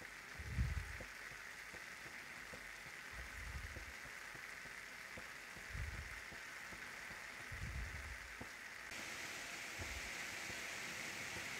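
Ground turkey and vegetables sizzling in a frying pan, a steady hiss with a few dull low bumps. The hiss grows slightly louder for the last couple of seconds.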